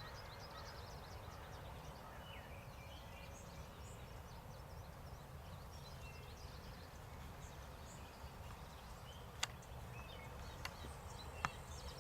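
Faint songbird chorus, many short high chirps and trills, over a steady low rumble, with a few sharp clicks in the second half.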